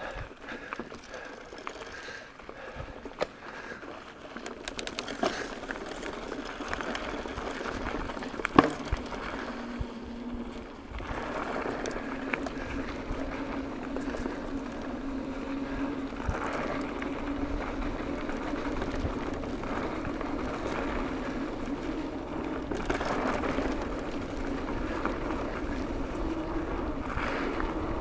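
Mountain bike rolling fast on a dirt trail: tyre noise and wind rushing over the microphone, with the bike rattling over bumps and a few sharp knocks. It gets louder a few seconds in as the bike picks up speed, and a steady hum joins about ten seconds in.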